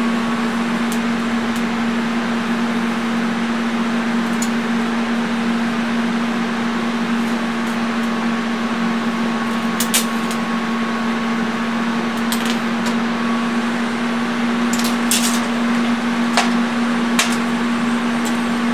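A steady electrical hum at one constant pitch over a noisy hiss, with a few sharp clicks and ticks in the second half.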